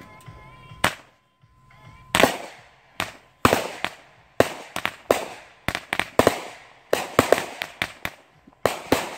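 Aerial fireworks bursting: one sharp bang about a second in, then from about two seconds a fast, irregular string of sharp bangs, several a second.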